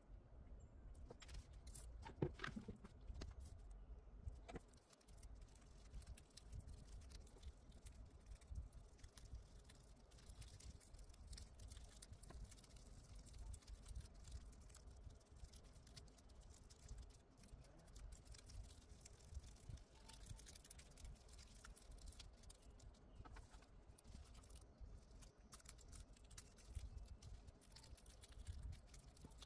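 Very quiet handling sounds: gloved hands moving small plastic nail tips and a dotting tool, giving scattered soft ticks and rustles over a low rumble, with one slightly louder click about two seconds in.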